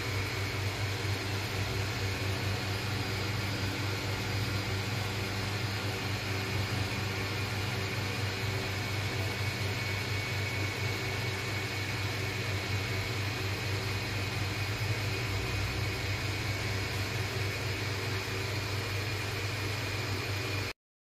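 A steady low hum with an even hiss over it, unchanging, cutting off suddenly just before the end.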